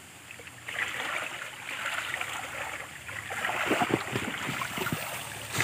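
Water sloshing and splashing as people wade and stir a shallow muddy pool by hand, with a few louder splashes about four seconds in.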